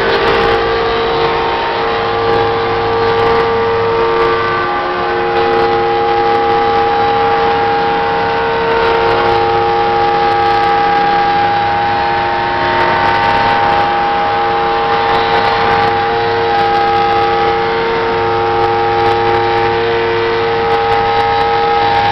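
CNC router trimming the edge of a foam wing panel: a loud, steady machine whine of several held tones over a hiss. The pitch shifts slightly a few times as the machine works along the cut.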